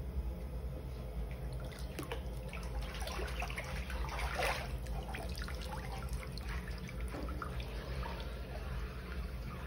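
Water splashing and sloshing in a hydro-dipping tank as a tumbler is pushed under and a gloved hand stirs the surface, busiest about four and a half seconds in, with dripping as the wet tumbler comes out. A steady low hum runs underneath.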